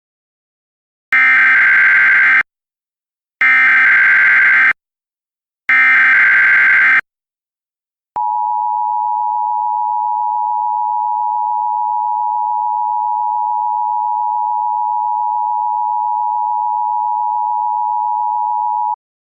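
Emergency Alert System tones: three bursts of digital SAME header data, each about a second long, then the two-tone EAS attention signal held steadily for about eleven seconds. Together they announce the start of a new alert.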